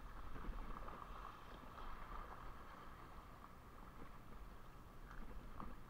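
Faint, steady wash of shallow seawater lapping over rocks, with a few light ticks.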